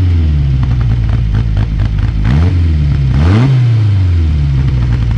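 Reliant 750cc four-cylinder race engine idling in the car, with the throttle blipped so the revs jump up and fall back, once at the start and again about two and three and a half seconds in.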